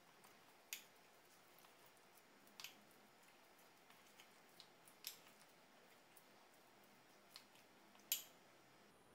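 Spoon stirring a thick gram-flour (besan) and spice paste in a small cup: faint, soft stirring with scattered light clicks of the spoon against the cup, about eight in all. The sharpest click comes near the end.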